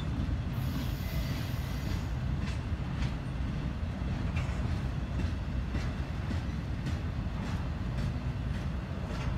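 Freight train rolling past: a steady low rumble with irregular clicks from the wheels.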